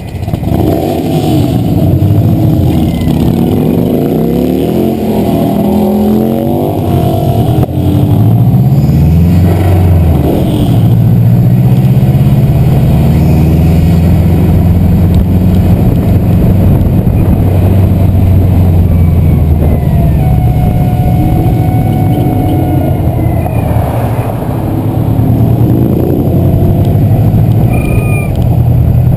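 Stage 2 Subaru WRX's turbocharged flat-four accelerating hard through the gears, its pitch climbing and then dropping at each shift. On the shifts, the Greddy blow-off valve vents through an attached hunting duck call, giving short quacking squawks.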